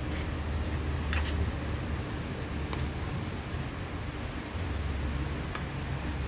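A spatula stirring fried rice in a nonstick frying pan, with three sharp clicks where it knocks against the pan, over a steady low hum.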